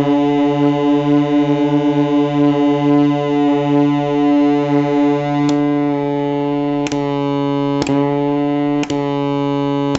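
Homemade 'half-century avalanche' drone oscillator synthesizer sounding a steady droning chord, its lowest notes pulsing in a slow beat. Four sharp clicks come in the second half as the channel toggle switches are flipped, A/B-testing an oscillator channel with a Mylar capacitor against one with an electrolytic capacitor.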